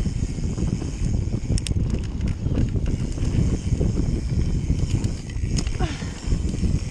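Mountain bike descending a packed-dirt trail at speed: knobby tyres rumbling over the ground and the bike rattling and knocking over bumps, with a couple of sharp clacks from the bike.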